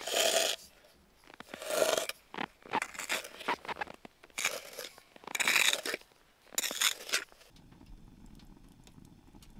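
Packed snow crunching under a person moving on it, in about five short crunches of half a second or so each. About three quarters through, it gives way to a faint low steady hum.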